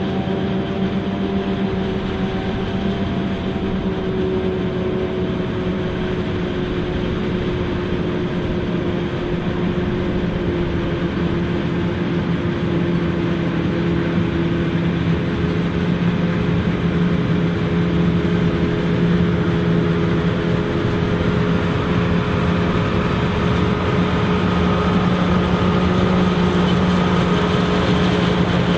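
Self-propelled forage harvester chopping corn silage, with a John Deere tractor pulling a silage wagon alongside: a loud, steady heavy-engine drone with a steady hum over it, growing a little louder as the tractor draws near.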